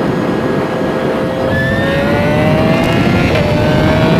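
Energica Ego electric motorcycle at highway speed: a thin electric-motor whine rising slowly in pitch as it gathers speed, over steady wind and road noise.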